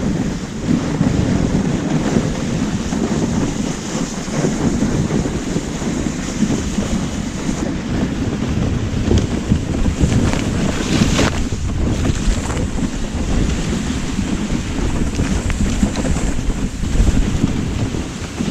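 Wind buffeting the microphone in a steady low rumble, over the rushing hiss of a dog-drawn sled sliding through snow, with a few brief crackles about two-thirds of the way through.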